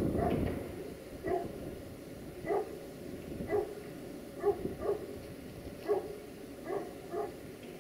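A dog barking repeatedly, about eight short barks at irregular intervals. A low rumble fades out about a second in.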